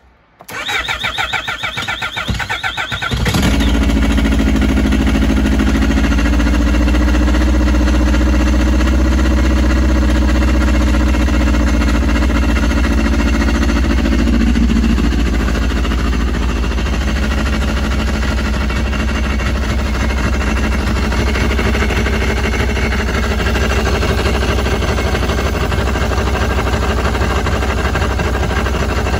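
Yamaha RX1 snowmobile's four-stroke inline-four engine cranked on its electric starter for about three seconds, then catching and running at a steady idle, its first start after the rusty ignition coils were cleaned and refitted. The idle note settles a little lower about halfway through.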